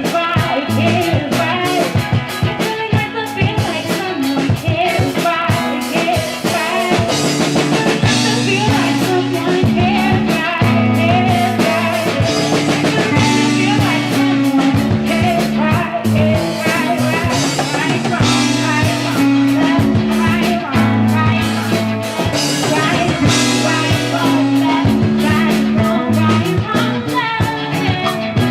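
Live band jamming: a drum kit keeping a steady beat under a bass line that moves every second or so, with guitar playing over it.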